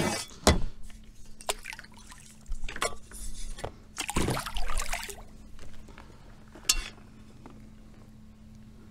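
Lake water splashing and dribbling as a fish-measuring board is dipped over the side of a kayak, with a few sharp knocks from handling gear. The biggest splash comes about four seconds in.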